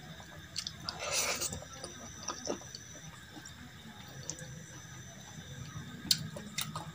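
Soft, wet sounds of eating by hand: fingers squishing and scooping curry and rice, with scattered small clicks and one louder squelch about a second in.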